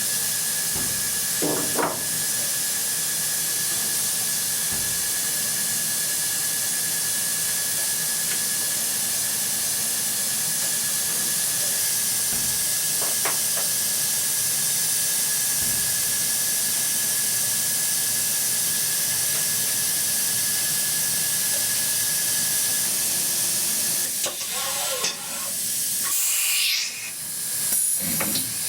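DATRON high-speed CNC milling machine running a milling cycle: a loud steady hiss with a thin, steady high whine from the spindle. About 24 seconds in, the whine stops and the sound turns uneven and changing.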